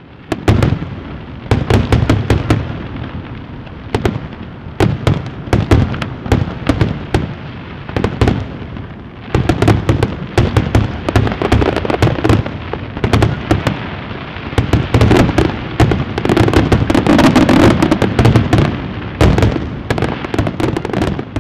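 Fireworks going off: a continuous run of bangs and crackling pops, most densely packed a little past the middle.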